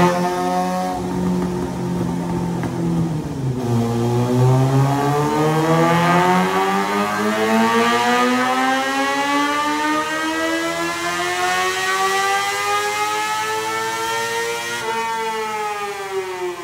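2014 Suzuki GSX-R750's inline-four, with its catalytic converter deleted and an M4 slip-on exhaust, running on a chassis dyno during a tuning pull. The revs sag for the first few seconds, then climb steadily for about eleven seconds before falling away sharply near the end.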